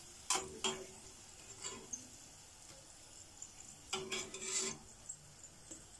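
A slotted metal spatula scraping and knocking against a stainless steel pot while stirring French fries in hot oil. There are a few short scrapes in the first two seconds and a longer scraping stir about four seconds in, over a faint frying hiss.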